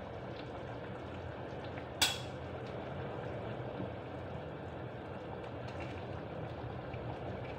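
Steady low kitchen rumble while food cooks in a pan on the stove, with one sharp metallic clink of a utensil against cookware about two seconds in.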